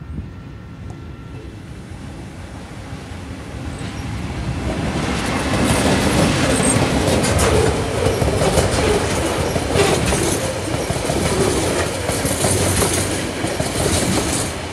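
TasRail diesel-hauled container train passing close by. The locomotive's rumble builds over the first few seconds as it approaches, then the loaded container wagons' wheels clatter steadily over the rail joints in rapid clicks.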